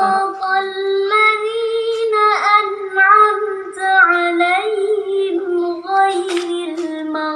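A high singing voice played back by the Smart Hafiz learning device, holding long melodic notes with brief breaks between phrases.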